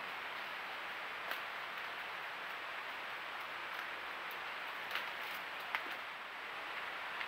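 Collared peccaries stepping and rooting in dry leaf litter: a few sharp crackles, one about a second in and two more past the middle, over a steady even hiss.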